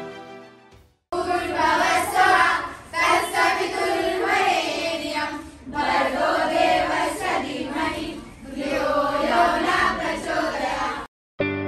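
A group of children and young women singing together in unison, in phrases of about three seconds with short breaks between them. Intro music fades out in the first second.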